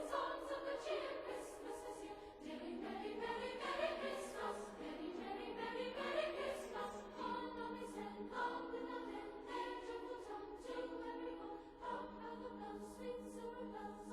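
A choir singing slow, held chords, fairly quiet, as background music.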